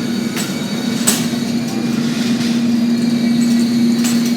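Shopping cart rolling across a hard store floor: a steady rumbling hum with a few sharp clicks and rattles.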